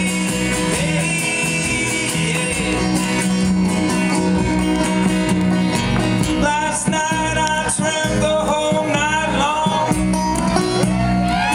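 Live band playing a folk song: strummed acoustic guitar and plucked strings under sung vocals, with long sliding, held vocal notes in the second half.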